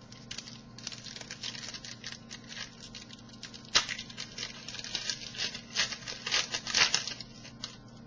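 Foil wrapper of a trading-card pack crinkling and tearing as it is opened by hand: an irregular run of crackles with a sharp tear about four seconds in, busier until near the end.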